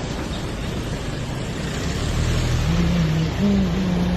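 Steady rushing noise of floodwater. A low droning tone joins it about two and a half seconds in.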